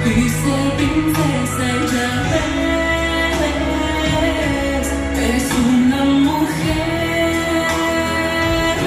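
Music: a waltz song with singing over instruments.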